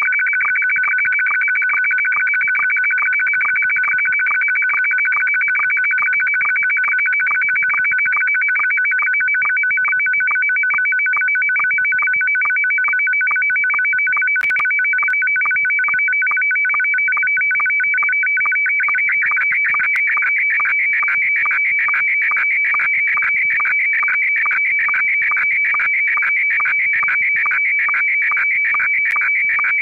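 Slow-scan television (SSTV) signal in Scottie S1 mode: a warbling two-tone signal broken by a short sync pulse a little over twice a second, one for each image line sent. About two-thirds of the way through it turns busier and mostly high-pitched as the lower part of the picture, with the call-sign text, goes out.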